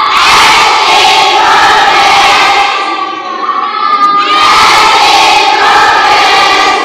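A class of students shouting and cheering together loudly, in two long bursts with a short dip about halfway through.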